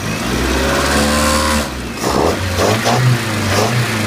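OMC Cobra 3.0-litre GM four-cylinder marine engine revved up and held for over a second, then blipped up and down several times in quick succession. It runs smooth, without knocks or ticks, and its compression is fairly even.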